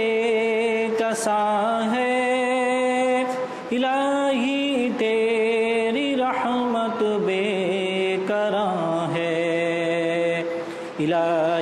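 Male voice singing an Urdu nasheed in long, drawn-out phrases with a wavering vibrato on the held notes, over a steady lower drone.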